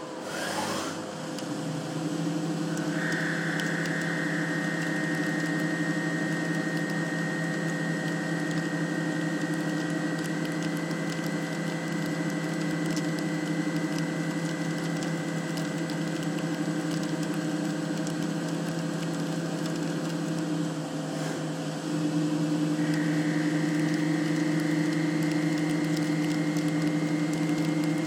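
CNC machine-tool spindle spinning up with a rising whine, then running at a steady speed with a held whine. About 21 seconds in the whine dips briefly, then settles at a slightly higher pitch and a little louder.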